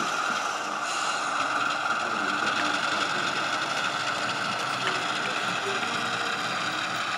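Model diesel locomotive running slowly past on a layout with a steady hum, over a background of hall chatter.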